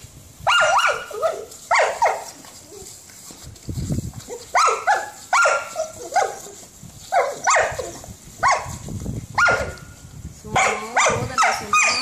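Kelpie barking in excited play: many short, high yelps that fall in pitch, in quick clusters, with a short lull about three seconds in.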